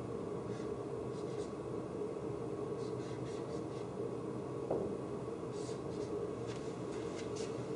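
Dry-erase marker writing on a whiteboard in several groups of short strokes, with a brief tap a little past halfway, over a steady room hum.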